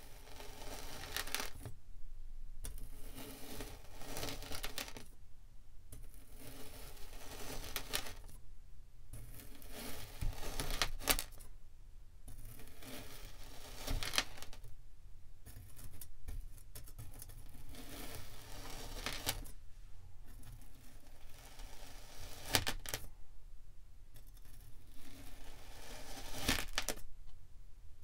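A chef's knife slicing down through a block of kinetic sand, stroke after stroke: about eight crunchy, gritty cuts of two to three seconds each, with short pauses between them and a sharp click at the end of some strokes.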